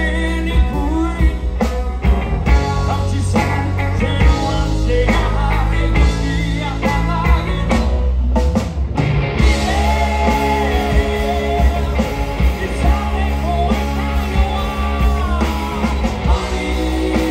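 Live rock band playing a song: electric guitar, bass guitar and drums, with male voices singing.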